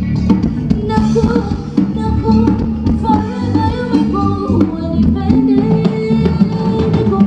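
Band music with a singing voice over drums and guitar.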